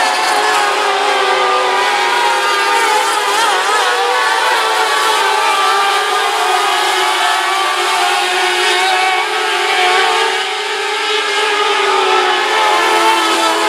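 A pack of mini late model dirt-track race cars running at racing speed: several engines at once, their pitch wavering up and down as the cars go around the oval.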